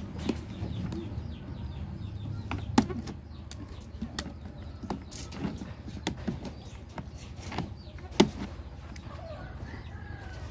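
Scissors snipping the wire that fastens a plastic crate, heard as a string of sharp clicks and snaps with plastic knocks from the crate. Two snaps, about three seconds in and about eight seconds in, are much louder than the rest.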